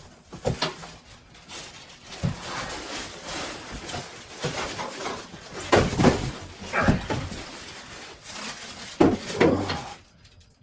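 Cardboard box and styrofoam packing scraping and rustling as a heavy benchtop thickness planer is worked free of them, with several heavy thumps, the loudest about six and nine seconds in.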